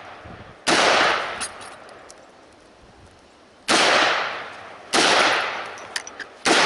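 Four handgun shots, the first two about three seconds apart and the last ones quicker, each followed by a long echo that dies away over a second or more.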